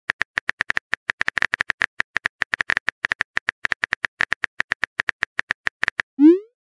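Simulated phone-keyboard typing clicks, about nine short clicks a second as a message is typed out, followed near the end by a short rising swoop.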